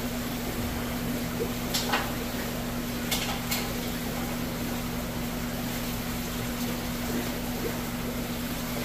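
Steady electric hum and watery rushing of aquarium pumps and filters running, with a few light clicks and knocks between about two and three and a half seconds in.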